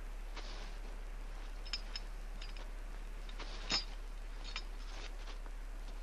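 Faint rustling and a few light clicks as a climbing rope is coiled and slung over a shoulder. The loudest click comes about three and a half seconds in, over a steady low hum.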